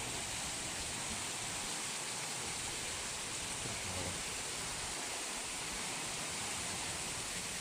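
Tropical storm wind and heavy rain making a steady, even rushing hiss with no separate gusts or impacts.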